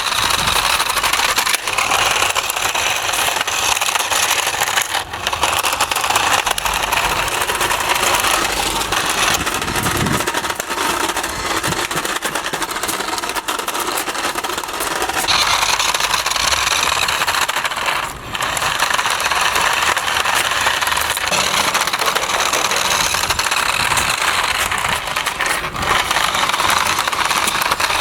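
Toy remote-control drift car running, a continuous clattering rattle with brief dips about five and eighteen seconds in.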